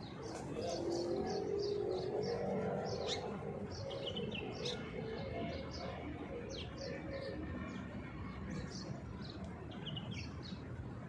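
Small birds chirping over and over, many short high chirps scattered throughout. A low steady drone lies beneath them during the first half.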